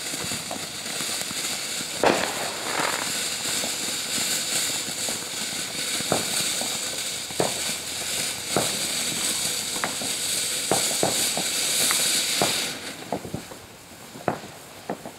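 Ground firework fountain hissing steadily with sharp pops and crackles throughout, the loudest pop about two seconds in. The hiss cuts off about 13 seconds in, leaving scattered pops.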